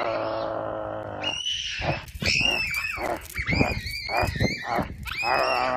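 A man's low, drawn-out growl imitating a wolf, then children squealing and shrieking in play, with a long wavering vocal call near the end.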